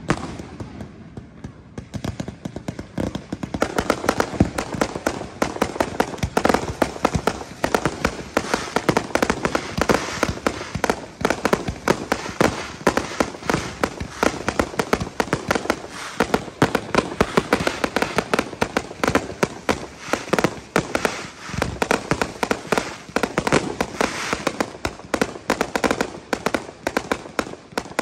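Fireworks display: after a quieter few seconds, a dense, rapid, unbroken string of bangs and crackles from shells launching and bursting.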